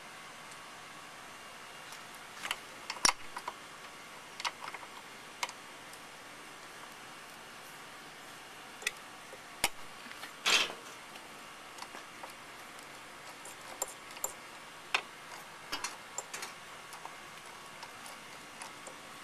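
Irregular metal clicks and taps of a socket and extension bar being fitted and turned by hand on a bolt at a lawn mower's carburetor, with a somewhat louder scrape about halfway through.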